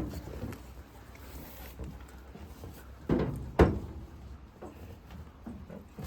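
A few knocks and thumps, two close together about three seconds in, from a ram shifting about in a livestock trailer while a bolus is given.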